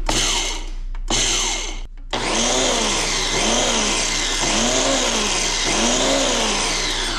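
Ninja Professional blender's motor running in two short pulses, then running continuously with its pitch rising and falling in a repeating cycle. It is grinding achiote seeds and spices in the small single-serve cup.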